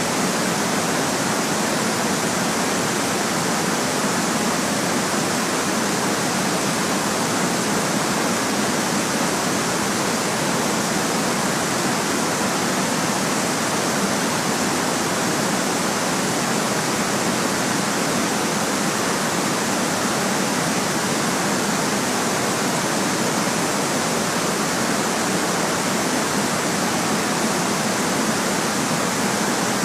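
Continuous white noise: an even, unchanging hiss with little bass.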